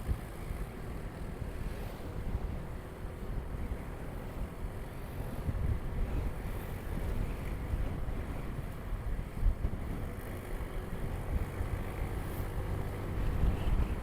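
Wind buffeting an action camera's microphone on a moving motorcycle, with the motorcycle's engine running steadily underneath.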